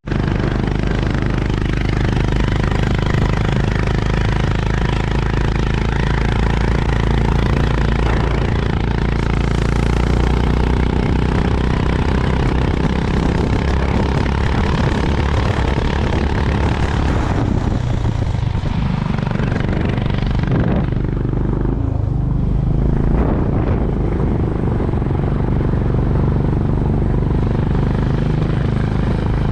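Honda CB350 RS's single-cylinder engine running steadily under way with a low thump, mixed with road and wind noise. About two-thirds of the way through, the sound eases off briefly twice before picking up again.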